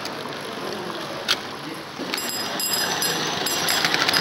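G-gauge model train running over the track, with one sharp click about a second in. From about two seconds in a rapid, steady ringing chatter starts: the model grade crossing's pulse bell going as the train reaches the crossing.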